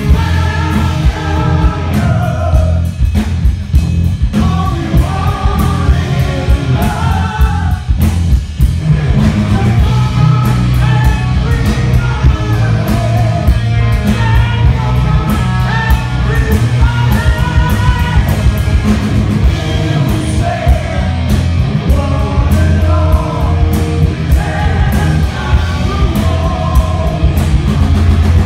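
Hard rock band playing live at full volume: a male singer's lead vocal over electric guitar, bass and a pounding drum kit.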